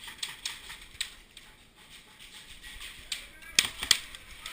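Airsoft guns firing: scattered sharp snaps, with the two loudest close together near the end.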